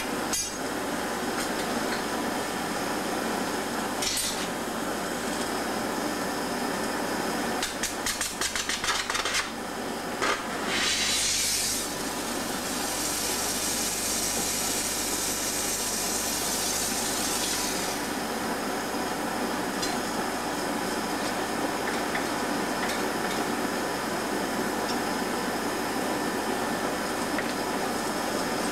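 Steady roar of a gas-fired glassblowing furnace, with a click about four seconds in and a quick run of taps and clinks about a third of the way in. A loud hiss starts near the middle and keeps on as a high hiss for several seconds before dying back to the furnace roar.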